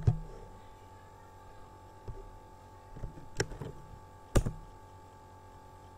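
A few sharp, separate clicks of a computer's mouse and keys as files are selected and deleted, the loudest about four and a half seconds in, over a faint steady hum.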